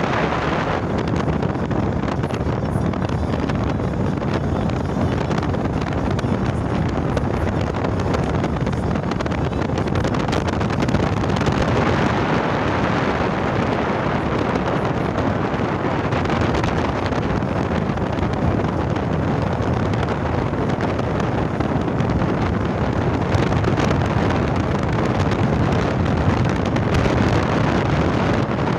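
Steady rushing wind noise buffeting the phone's microphone, with no pauses or changes.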